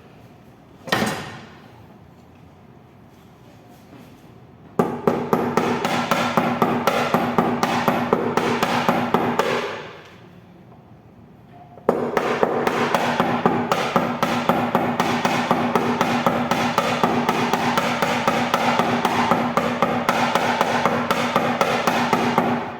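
Rapid, steady hammer taps on sheet metal as a dent is being hammered out, with a ringing tone from the metal under the blows. There is one single strike about a second in, then a long run of quick taps, a pause of about two seconds, and a second long run.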